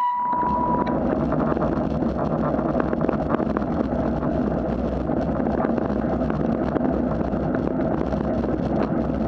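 Bicycle rolling over wet asphalt: steady tyre and wind noise with many small rattles and clicks from the bike. A steady high tone sounds for about the first second, then stops.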